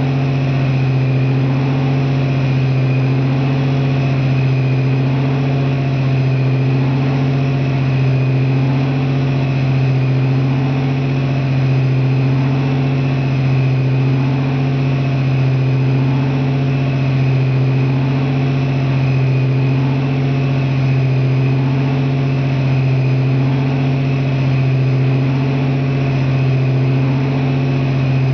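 Napier Deltic T9-29 nine-cylinder two-stroke opposed-piston diesel engine running steadily inside a locomotive body, with an even, unchanging note.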